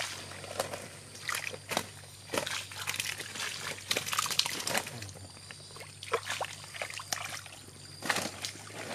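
Shallow muddy water sloshing and splashing as a hand-held mesh scoop net is pushed through the mud and lifted, water trickling back out of the net, in a series of irregular splashes.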